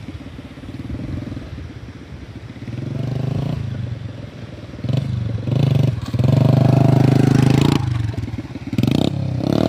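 Small motorcycle engine being ridden and revved in several bursts, rising and falling, with the longest and loudest rev about two-thirds of the way through.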